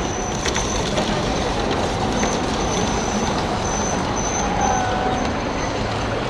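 Model trains running on a layout: a steady rumble of wheels on the track, with a thin high squeal coming and going.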